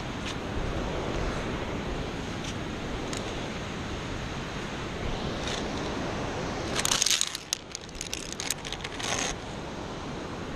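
Steady wind rushing over the microphone, then about seven seconds in a quick run of metallic clinks and scrapes lasting a couple of seconds, as via ferrata carabiners are handled and slid along the steel safety cable.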